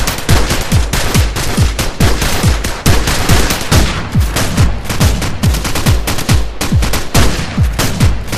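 Fast electronic dance music driven by a rapid, hard-hitting kick drum, about four thumps a second, each dropping in pitch, over a dense noisy wash.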